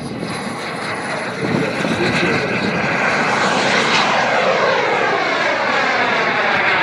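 Turbine engine of a radio-controlled model jet running at high power as the model flies low past and overhead. The sound grows louder over the first two seconds, then holds, with a whooshing sweep falling in pitch from about four seconds in as it passes.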